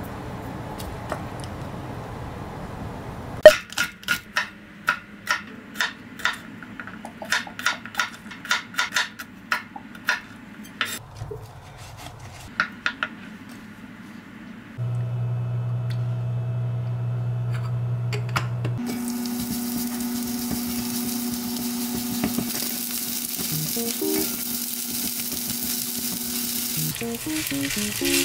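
A run of sharp taps of a knife on a wooden cutting board, then, from about two-thirds of the way in, garlic, green onions and cold rice sizzling on a hot griddle pan as they are stirred and mixed with a spatula for garlic butter fried rice.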